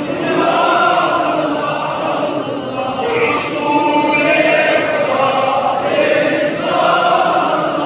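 Many men's voices chanting together in unison, a slow, melodic religious recitation of drawn-out phrases.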